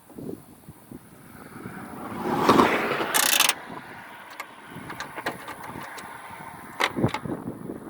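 A vehicle passing by, its noise swelling to a peak about two and a half seconds in and fading within a second after, amid scattered clicks and knocks.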